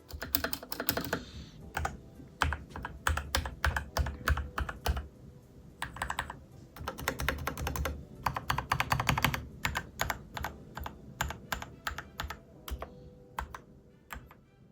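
Typing on a mechanical keyboard fitted with pudding keycaps (PBT tops over a clear ABS layer): quick runs of key clacks with short pauses between them, thinning out to a few scattered keystrokes near the end.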